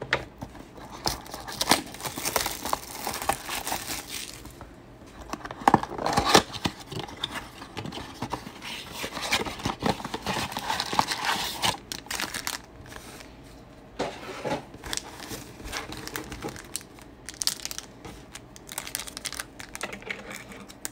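Plastic wrap and foil card packs crinkling and tearing as a Panini Mosaic basketball card box is opened and its packs are pulled out, with irregular rustles and sharp crackles.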